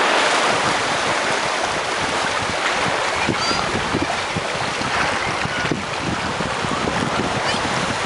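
Ocean water washing and lapping along a rocky shore, with wind buffeting the microphone, as a steady noise.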